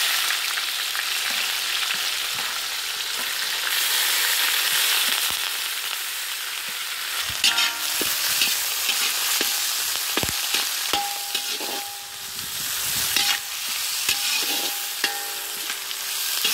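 Freshly added chopped onions sizzling in hot oil in an iron kadai. From about halfway on, a metal spatula scrapes and taps against the pan as they are stirred, with sharp clicks and a brief ring now and then.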